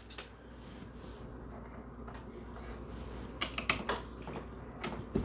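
Light metallic clicks of a brass cartridge case being fitted into and pulled from a Lee Ram Prime die on a single-stage reloading press while primers are seated, with a quick cluster of clicks about three and a half seconds in.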